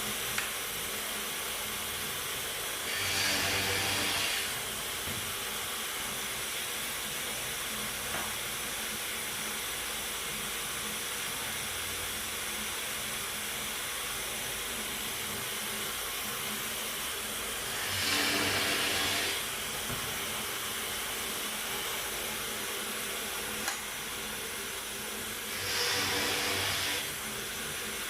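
Workshop vacuum running steadily as dust extraction on a hinge drill press. Three times it gets louder for about a second and a half, with a higher hiss, as the drill press bores into MDF.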